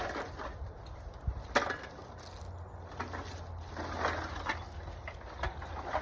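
Crackling and clattering of litter being picked up, mostly empty aluminium drink cans, in a series of sharp clicks, the loudest about one and a half seconds in and a cluster near four seconds. A low steady rumble runs underneath.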